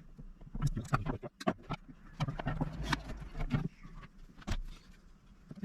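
Irregular clicks and knocks, a couple of dozen short sharp taps spread unevenly over a few seconds.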